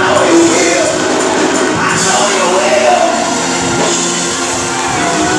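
Loud live gospel music: singing over drums and other instruments, with the congregation clapping along.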